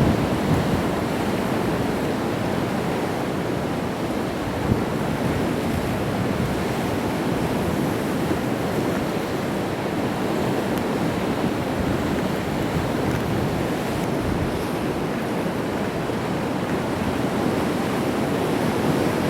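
Sea waves breaking on rocks, a steady wash of surf.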